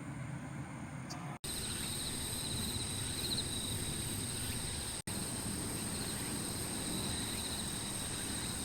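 Insects chirping with a steady high-pitched trill over a low outdoor rumble, starting abruptly about a second and a half in.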